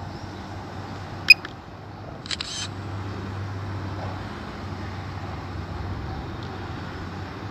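A sharp click about a second in, then a short double click about a second later, over steady low background noise.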